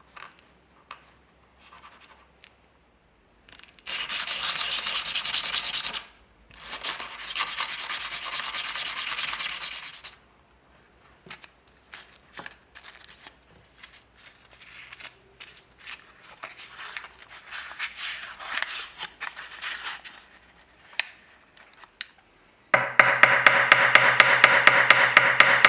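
Abrasive sanding on the small metal parts of an antique trench lighter being restored: two loud, hissing stretches of a few seconds each, then quieter scraping and light clicks of handling. Near the end a small motorized tool starts with a loud, even buzz and rapid ticking.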